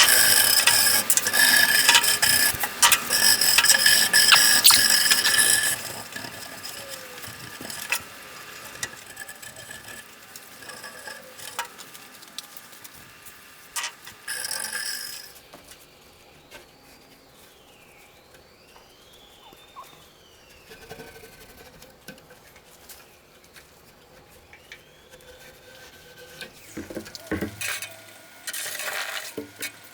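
Cleaning grease from the inside of a sheet-metal tool chest. A few seconds of loud scrubbing open it, followed by quieter scraping and clicks with faint squeaks, and short bursts of scrubbing again about halfway through and near the end.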